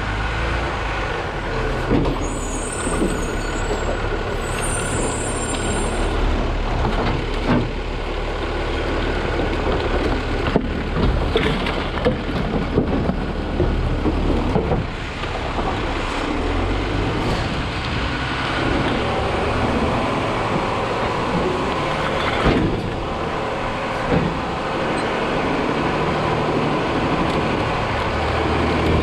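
New Way automated side-loader garbage truck on the move, its engine running under steady rattling and clattering from the body and hopper, with scattered knocks.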